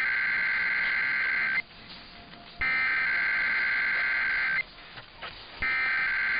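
Emergency Alert System SAME header over broadcast radio: the two-tone digital data screech sent in bursts about two seconds long with a second's pause between them, marking the start of a Required Weekly Test. One burst ends early, a second plays in the middle, and a third begins near the end.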